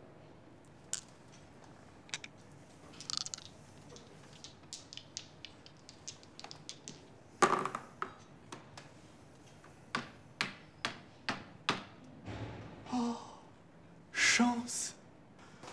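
A run of irregular sharp taps and clicks, a few a second, with one sharper knock about halfway through and a longer, louder noisy sound near the end.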